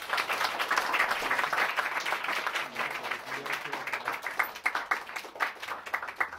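A small audience applauding, many hands clapping quickly and densely, then thinning out over the last couple of seconds.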